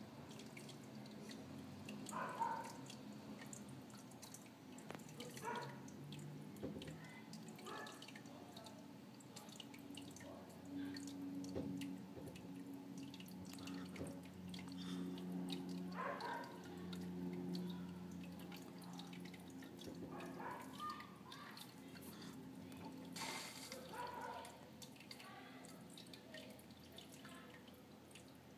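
Faint, irregular water drips and trickles from a home aquarium, with a low hum that comes in about a third of the way through and fades out past the middle.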